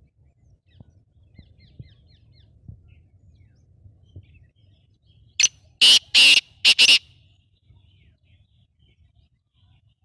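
Black francolin calling: one loud, harsh call of five short notes in quick succession, a little after halfway in. Faint chirps of small birds come earlier.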